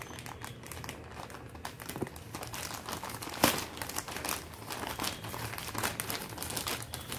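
Plastic courier mailer bag crinkling and crackling as it is torn open by hand, with one sharp, louder snap of plastic about three and a half seconds in.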